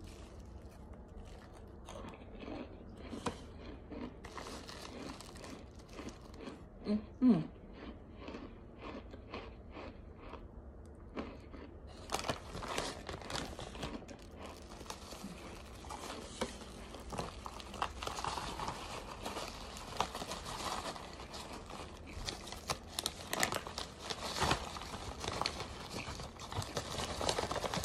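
A plastic bag crinkling as hands squeeze and knead the compressed starch chunks inside, which crunch and crackle. The crunching is sparse at first and becomes dense and continuous about halfway through. A brief vocal hum comes about seven seconds in.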